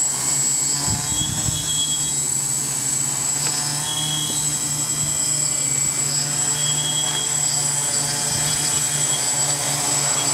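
OFM 650 V4 (Xaircraft X650 V4) quadcopter's four brushless motors and propellers running with a steady hum as it flies low.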